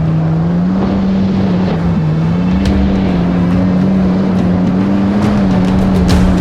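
Supercharged Yamaha GP1800R SVHO jet ski's four-cylinder engine running at a steady speed, its pitch wavering gently up and down, with a couple of short sharp hits.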